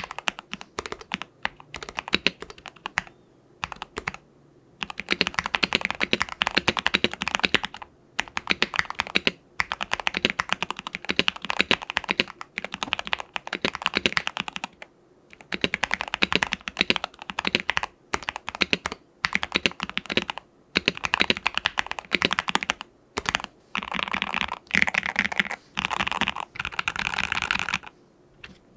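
Ikki68 Aurora mechanical keyboard with lubed Gateron Hippo switches on an aluminium plate, PE-foam and tempest modded, being typed on quickly. The typing comes in bursts of keystrokes broken by short pauses, with a denser flurry of keypresses near the end.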